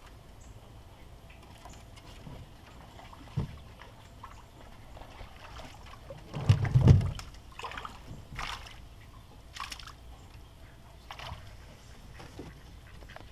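Water sloshing and splashing against a small boat as a trotline is hauled up by hand from the lake. There is a loud thump about seven seconds in, followed by a few short, sharp splashes.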